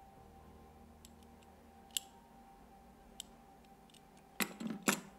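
Metal puzzle padlock and its key clicking as they are worked by hand: a few light clicks, then a quick burst of louder rattling clicks near the end.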